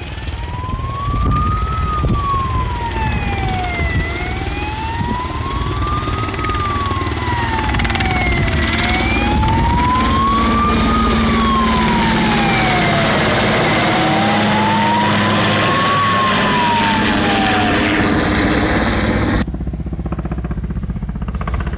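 Emergency-vehicle siren wailing, its pitch rising and falling slowly about every five seconds, then stopping near the end. Under it a loud rushing noise from a firefighting helicopter flying low overhead builds in the middle and cuts off abruptly.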